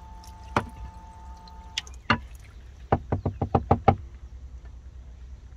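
Dishes knocking together while a plate is rinsed over a washing-up bowl: a few separate clinks, then a quick run of about eight knocks within one second.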